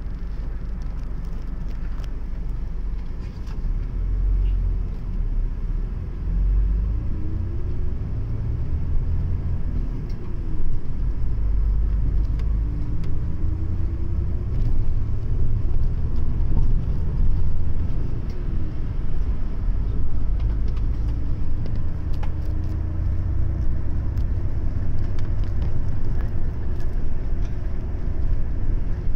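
Highway coach's diesel engine and road noise heard from inside the cabin: a low rumble, quieter at first while the bus stands, then building as it pulls away. A drivetrain whine rises in pitch several times as it gathers speed through the gears.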